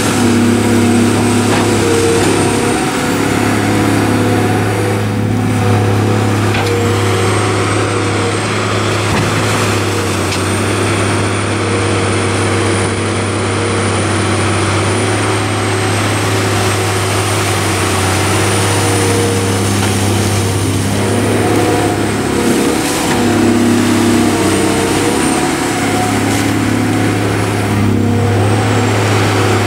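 Caterpillar 345B L Series II excavator's diesel engine running steadily under load as the hydraulics swing the boom and work the bucket, its note shifting a little as the load changes. A thin high whine rises and falls in pitch a few times.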